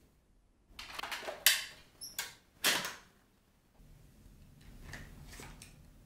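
Plastic parts of a Dyson cordless stick vacuum being handled and latched: a short rustle, a sharp click, a quick double click, then a heavier clunk, all within about two seconds, followed by faint room noise.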